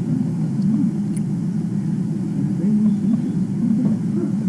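A steady low hum with a faint click about a second in.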